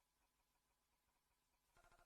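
Near silence: the audio has dropped out between clips, with only a faint hiss.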